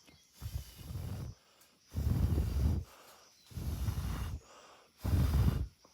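Heavy breathing right at the microphone: four loud breaths about a second and a half apart, from a hiker climbing a steep trail.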